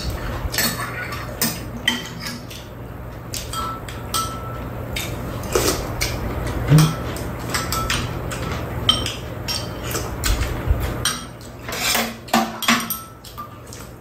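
Metal spoons and chopsticks clinking and scraping against ceramic bowls during a meal, in many short, irregular clicks. A steady low hum runs underneath and stops about eleven seconds in.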